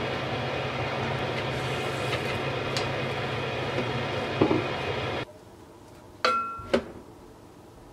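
A steady mechanical drone, like a kitchen fan, cuts off abruptly about five seconds in. A knock comes shortly before. Near the end, two ringing clinks sound from the spatula or lid against the ceramic rice pot.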